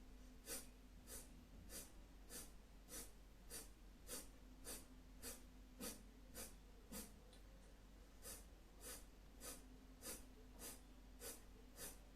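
Kapalabhati breathing: a woman's short, forceful exhalations through the left nostril, the right one held closed, faint and evenly paced at a little under two a second. There is one brief break just past halfway.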